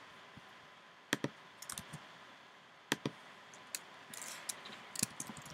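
A few separate computer clicks, some in quick pairs, then a short run of typing on a computer keyboard in the last second or so.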